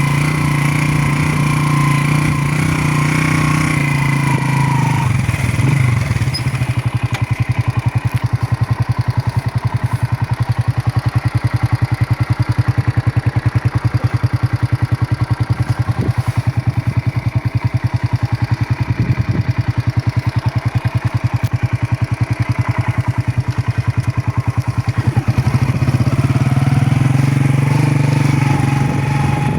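Motorcycle engine running with a steady note. About five seconds in it drops to a slow, evenly pulsing low-rev beat. Near the end it picks up to the steadier, higher note again.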